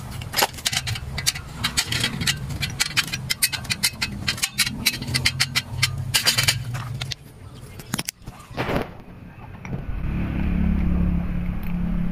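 Quick metal clicks and clanks, several a second, as a steel square tube is handled and adjusted on a bolted scaffolding clamp, over a steady low hum. The clicking stops after about seven seconds, and from about nine seconds only a steady low rumble is left.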